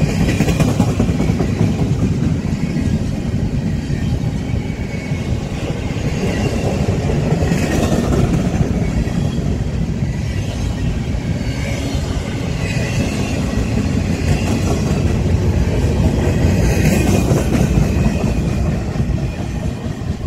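Empty intermodal well cars of a freight train rolling past close by: a steady, loud rumble of steel wheels on rail that eases off near the end as the last car goes by.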